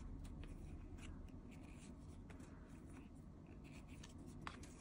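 Faint rubbing and light scattered ticks of glossy photocards being slid and shuffled against each other by hand, with one slightly sharper tick near the end.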